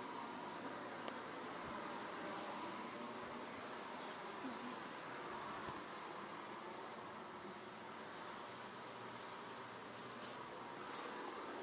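Cricket chirping, a steady high, rapidly pulsed trill, with a few faint clicks.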